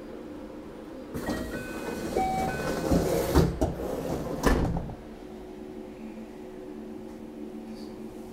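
Inside a limited express train car, a sliding door opens: louder rattling rail noise with a few knocks comes in for about four seconds. It shuts with a thump, leaving the car's steady hum.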